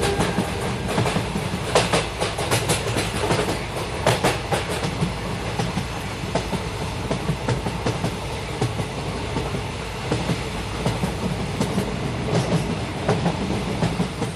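Passenger train running along the track, heard from inside the carriage at an open window: a steady rumble with irregular clacks of the wheels over rail joints.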